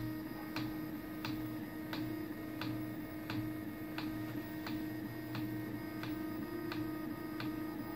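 Original Prusa i3 3D printer ticking evenly, a sharp click about every two-thirds of a second, over the steady hum of its fans.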